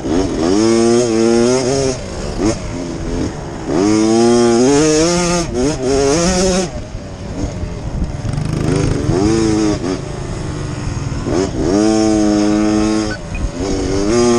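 Small off-road motorcycle engines revving as the bikes accelerate, the pitch climbing sharply and then holding, about five times over.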